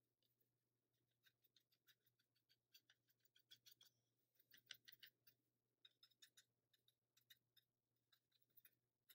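Faint, quick taps and scratches of a watercolor paintbrush dabbing and stippling paint onto paper, several a second in an uneven rhythm.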